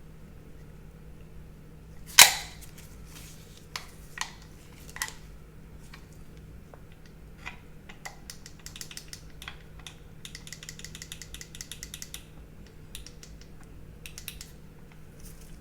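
Metal clicks and snaps from a CZ Shadow 2 pistol being handled during disassembly: one loud sharp snap about two seconds in, a few lighter clicks, then a fast, even run of light ticks about midway and more scattered clicks near the end.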